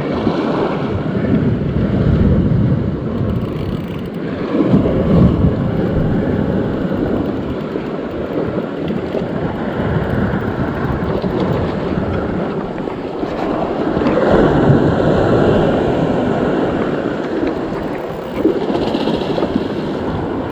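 Sea surf washing and surging against a rocky cliff, with wind buffeting the microphone. The wash swells louder a few seconds in and again about two-thirds of the way through.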